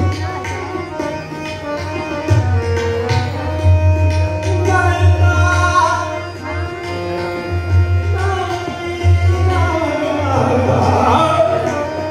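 Hindustani classical vocal performance: a male singer sings a melodic line with gliding ornaments, accompanied by tabla, harmonium and a tanpura drone. The tabla's bass drum keeps up a steady pulsing beat beneath the voice.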